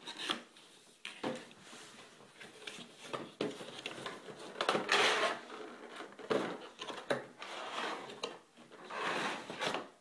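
A cardboard box being opened and a CPU cooler in a clear plastic clamshell slid out of it: irregular scraping and rustling of cardboard and plastic, with a few light knocks.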